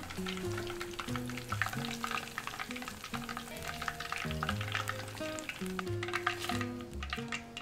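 Battered chicken deep-frying in hot oil in a cast-iron pot: a dense, steady crackle that thins out near the end, over background music.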